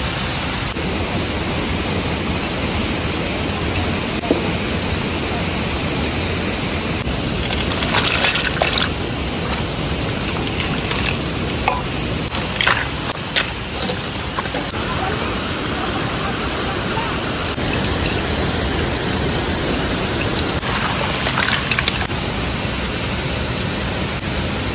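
Steady rushing of a waterfall, with a few short sharp sounds over it at intervals.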